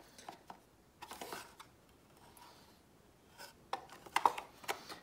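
Handling noise from a GoPro Max camera and its box insert being picked up and turned: scattered light clicks and knocks, a brief rustle about a second in, and a cluster of sharper clicks near the end.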